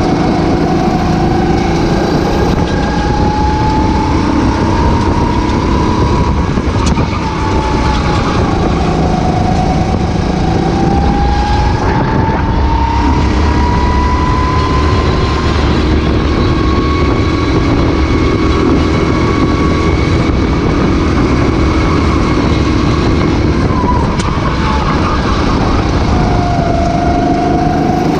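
Racing go-kart engine at race speed, heard onboard. Its pitch climbs slowly as it accelerates and drops back for corners, several times over.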